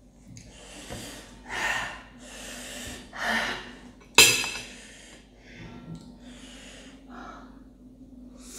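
A person breathing hard in and out through the mouth and nose, a string of sharp gasps and sniffs as the burn of double-spicy instant noodles sets in. The loudest one starts suddenly about four seconds in.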